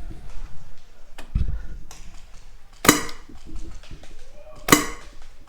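Two sharp single shots from an airsoft rifle, a little under two seconds apart, each with a brief metallic ring. A low thump comes about a second in.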